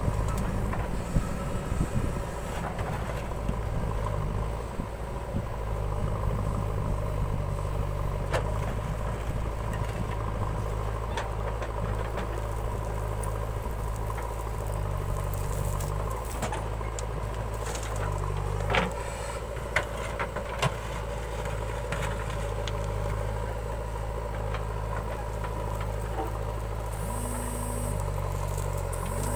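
JCB 3DX backhoe loader's diesel engine running steadily while it digs and loads soil, its pitch stepping up and down with the load. A few sharp knocks come about two-thirds of the way through.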